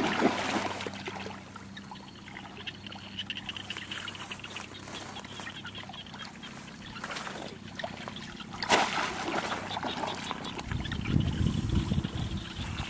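Shallow muddy water splashing as a bamboo plunge-basket fish trap is pushed down into it, then sloshing and trickling as hands grope inside the trap for fish; a second splash comes about nine seconds in, and a low rumble near the end.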